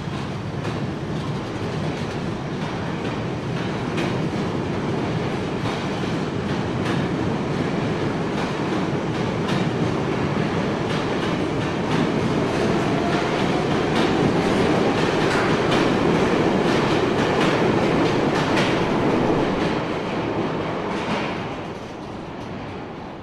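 A steady rumbling, rattling noise with many sharp clicks through it. It swells to its loudest about two-thirds of the way through and drops off shortly before the end.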